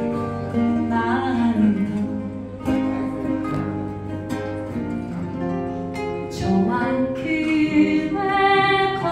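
A singer sings a Korean song in long, held notes over acoustic guitar accompaniment.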